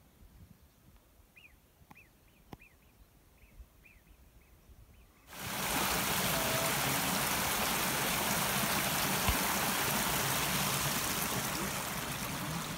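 A few faint high chirps over near quiet, then, from about five seconds in, a small mountain stream splashing down over rocks, a loud steady rush of water.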